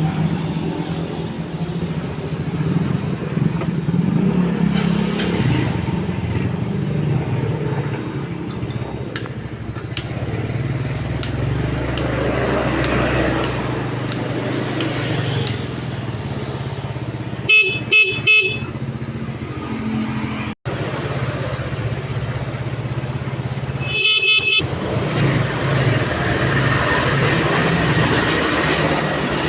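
Yamaha Mio scooter's single-cylinder engine idling steadily while its electric horn is sounded: three short toots about two-thirds of the way in, then another quick run of toots a few seconds later. The horn sounding shows it working again after its handlebar switch holder was cleaned.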